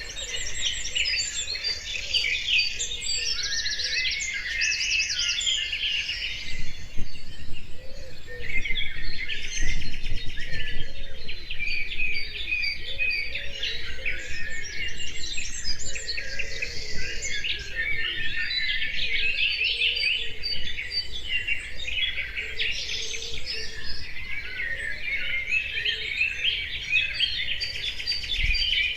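Dense chorus of many songbirds chirping and trilling together, with fainter lower calls and a low rumble underneath.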